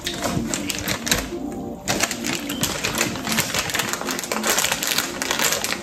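Plastic bag of shredded cheese crinkling and rustling as it is handled and torn open, a dense run of crackles that eases briefly about a second and a half in and is busiest near the end.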